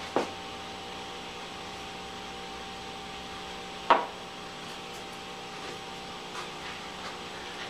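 A steady low hum, broken by a small click just after the start and a sharp, louder click about four seconds in. The loud click is the push button of a small battery LED hat-brim light being pressed, switching the light on.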